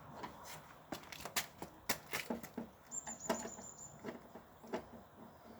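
Scattered light taps and clicks at irregular intervals, with a thin high tone that holds for about a second roughly three seconds in.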